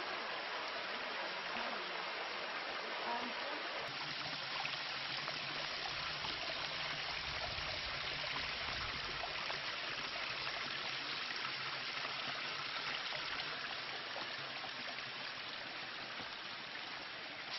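Steady, even rush of fast-flowing water in a rocky mountain gorge.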